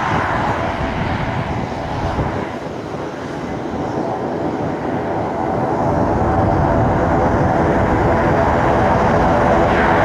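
Beechcraft King Air's twin PT6A turboprop engines and propellers running as it taxis: a steady propeller drone with a layered whine that grows louder about halfway through as the aircraft turns head-on.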